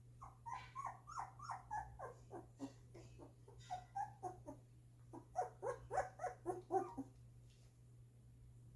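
Two-week-old golden retriever puppies whimpering, a quick run of short, high cries that each fall in pitch. The cries stop about seven seconds in.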